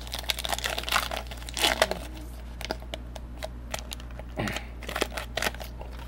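Plastic wrapper of a baseball card pack crinkling and tearing as it is handled and opened, in crackly bursts about a second in and again after about four seconds.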